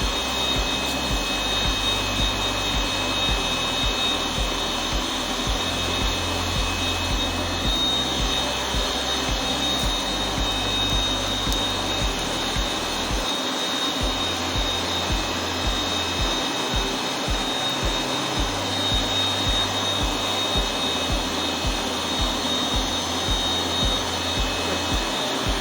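Electric air pump blowing air into a homemade forge, a steady rushing noise with a thin, steady high whine. Background music with a regular bass beat underneath.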